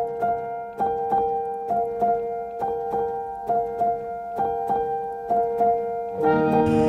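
Background instrumental music on a keyboard: a steady pattern of struck notes over a held tone. About six seconds in, it swells into a fuller passage with deeper notes.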